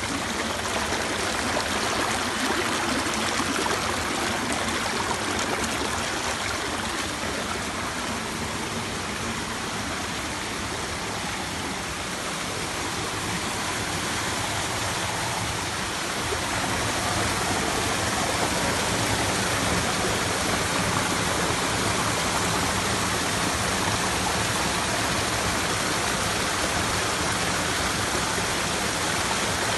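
A small mountain stream running and splashing over and between boulders, a steady rush of water that grows a little louder about halfway through.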